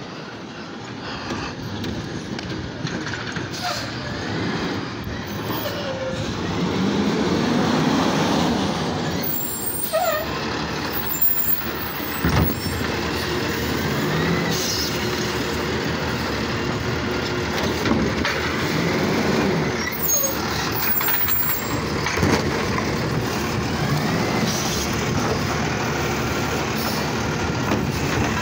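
Automated side-loader garbage truck pulling up to the curb on its diesel engine, then running its hydraulic arm to lift a trash cart, empty it into the hopper and set it back down. The engine revs as the hydraulics work, with rising and falling whines and a sharp bang about twelve seconds in as the cart is emptied.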